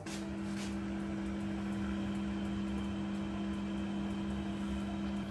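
Oven running while it bakes: a steady low electric hum with fan-like hiss.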